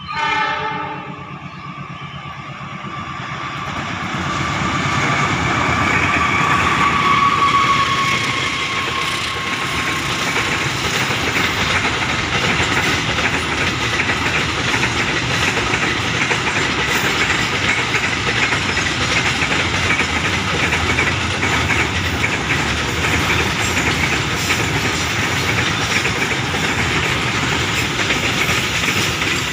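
Container freight train passing: a short horn blast at the start, then a tone that slides slightly lower as the front of the train goes by, then the steady rumble and clickety-clack of the container wagons rolling past on the rails.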